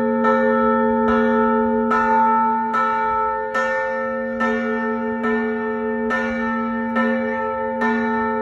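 Church tower bells struck in a steady rhythm, about one stroke every 0.85 seconds, their tones ringing on between strokes. This is the ringing after the calls to Mass.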